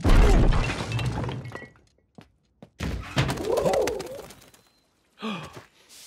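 Cartoon crash sound effect: a loud crash right at the start with clattering that dies away over about a second and a half. After a short silence comes a second clatter with a short pitched call that rises and falls, then a brief falling pitched sound near the end.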